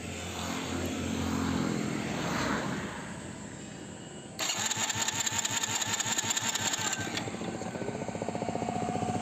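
Electric starter cranking a Hero Splendor iSmart's single-cylinder engine with its spark plug out: a steady whir, then a sudden change about four seconds in to a fast, even pulsing crank. The engine does not fire because the hot engine has lost its ignition spark.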